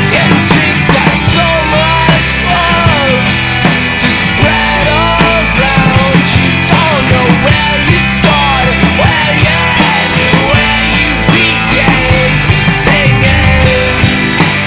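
Rock band playing an instrumental passage: a lead line that bends up and down in pitch over a steady bass and drums.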